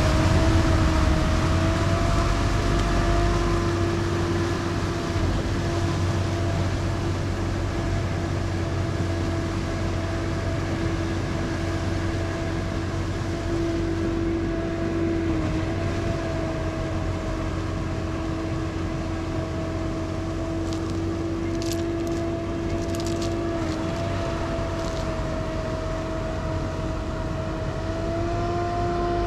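Steady propeller hum of a small hovering camera drone, with a low rumble underneath. The pitch shifts slightly a few times and steps up near the end.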